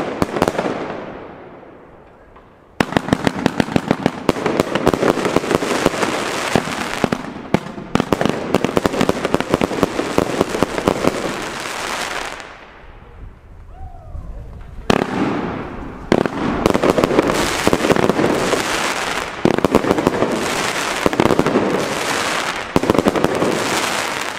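Röder Blutonium firework battery firing: rapid volleys of sharp cracks and bursts, with brief lulls about two seconds in and again around the middle before the barrage picks back up.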